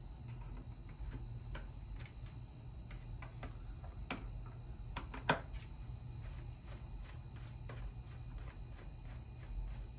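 Light, irregular clicks and taps of small chainsaw parts being handled and fitted during reassembly, with one sharper click about five seconds in, over a low steady hum.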